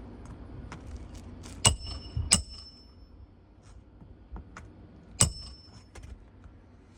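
Roof snake (steel slide-hammer nail driver) striking three times, driving a roofing nail into a replacement shingle under the tab above. Each strike is a sharp metallic clank with a brief ring: two about half a second apart, the third a few seconds later, with lighter clicks of the tool between.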